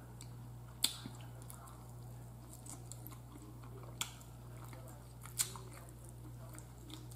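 A person eating an air-fried chicken wing, with faint chewing and three sharp mouth clicks, about a second in, at four seconds and near five and a half seconds.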